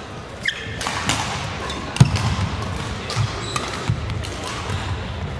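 Badminton rally: sharp cracks of rackets striking the shuttlecock, the loudest about two seconds in, over thuds of footsteps on the wooden court and a brief shoe squeak near the start, all ringing in a large hall.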